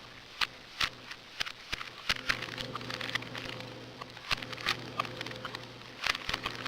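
Rubik's cubes' plastic layers clicking and clacking as they are twisted, in quick irregular clicks, over a steady low electrical hum.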